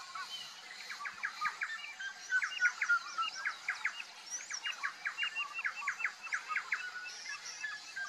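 Wild birds calling in the grassland: quick runs of short, sharp repeated notes, with scattered higher chirps over a faint steady high tone. The rheas themselves are not heard.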